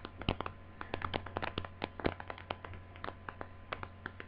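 Irregular light clicks and taps of hands handling a plastic laptop AC adapter and its cable, over a low steady hum.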